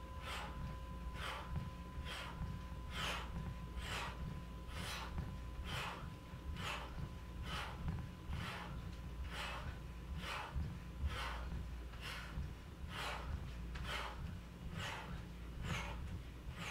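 A person breathing hard in a quick, even rhythm, about three breaths every two seconds, keeping time with jumping jacks.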